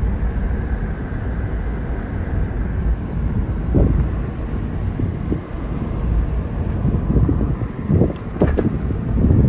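Steady engine and road rumble from inside a moving car. Twice, about four and eight seconds in, a brief higher-pitched sound rises over it.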